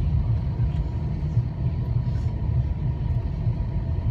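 Airbus A321 taxiing, heard inside the cabin: a steady low rumble from the engines at idle and the wheels rolling, with a few faint ticks.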